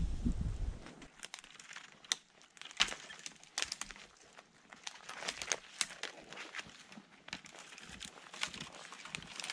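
Boots crunching through deep snow and dry dead twigs and branches crackling and snapping as they are broken off by hand, in irregular sharp cracks.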